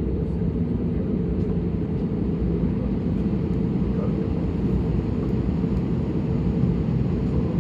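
Steady low cabin rumble inside an Airbus A320neo on the ground before take-off, engines running at low power, with a few faint small clicks.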